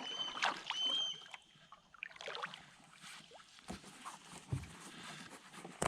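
A hawk calling: two short, high whistled calls in the first second and a half. After them come small knocks and water sounds from the kayak, with a low thump about four and a half seconds in.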